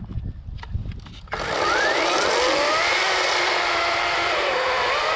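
EGO 18-inch cordless electric chainsaw. Its motor stops, a few low knocks follow, then about a second and a half in it starts again abruptly with a steady whine whose pitch dips and recovers under load.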